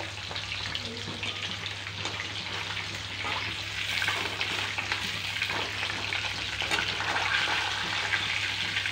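Rohu fish pieces frying in hot oil in a kadai, a steady sizzle with small crackles, growing a little louder about four seconds in, while a metal spatula turns the pieces in the pan. A low steady hum lies underneath.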